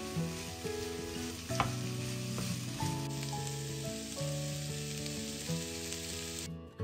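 Vegetables sizzling in oil in a frying pan, with a few sharp knocks of a utensil against the pan. The sizzle cuts off suddenly near the end.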